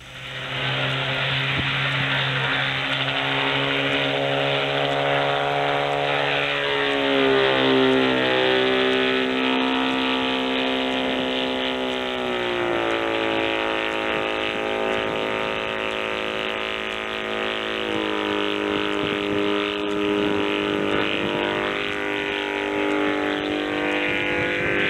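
A light autogyro's small piston engine running steadily in flight, heard from the ground. Its pitch wavers about a third of the way in and steps down about halfway through.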